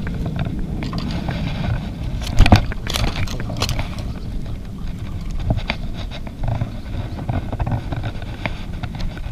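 Handling noise from a freshly landed peacock bass held in lip-grip pliers: a low rumble with scattered knocks and scrapes as the fish twists and bumps. The loudest knock comes about two and a half seconds in.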